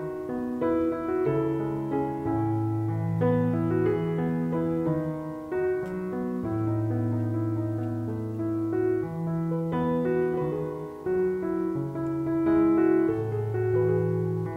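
Background piano music: a slow piece with long held low notes under a simple melody.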